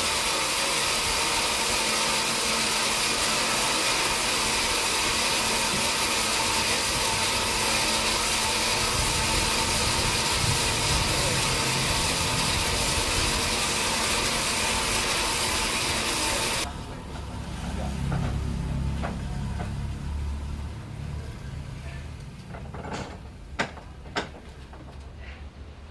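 Sawmill machinery running steadily, a loud even noise with a few constant high tones in it, cutting off abruptly about two-thirds of the way in. A lower engine rumble follows, with a few sharp knocks near the end.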